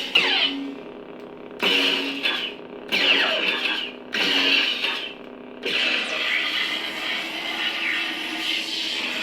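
Kyberphonic 'Sol' lightsaber sound font from The Acolyte pack playing through a saber's speaker: a steady hum broken by sudden swing or clash sounds about every second and a half, each with a falling pitch sweep. From about six seconds in, a sustained rough buzz.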